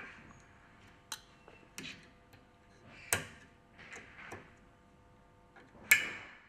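Light metallic clicks and knocks of hand tools and parts on the pump shaft as a bearing is seated and its ring lock fitted. There are about six separate strikes, with the loudest near the end.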